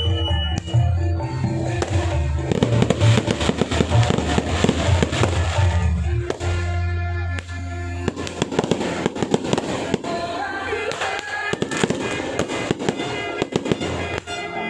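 Fireworks bursting and crackling in quick, dense volleys over loud music with a heavy bass line. The crackling thickens about two and a half seconds in, and the bass eases off in the second half.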